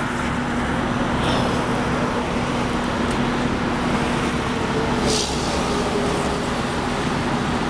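Steady highway traffic noise heard from an overpass: the tyre and engine rush of cars and trucks passing on the multi-lane road below, over a low steady hum. A brief louder rush comes about five seconds in as a vehicle passes close beneath.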